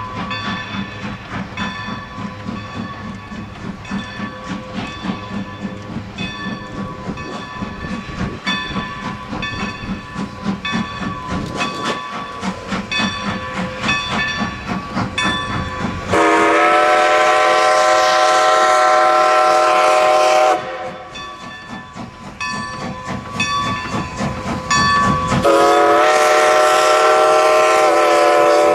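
A steam locomotive working hard with a passenger train, its exhaust chuffing in a steady beat. About halfway through, its multi-note chime whistle sounds one long blast that cuts off sharply. Near the end it starts a second long blast while the chuffing continues underneath.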